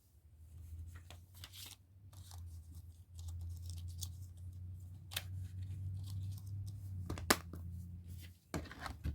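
Handling of plastic disc cases and packaging: scattered clicks, scrapes and rustles, with one sharp click near the end, over a steady low hum.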